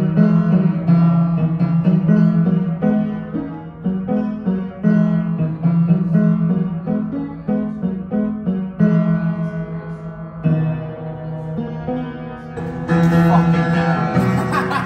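Upright piano played by hand: chords and single notes struck in a steady run, each ringing on after it is hit. Near the end a rush of background noise comes in over the playing.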